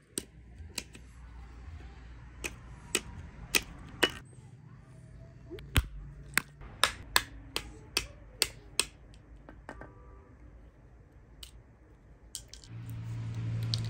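Walnuts being cracked with a hand-held rock on a flat stone slab: a series of sharp, irregular knocks, coming thick and fast in the middle and thinning out toward the end.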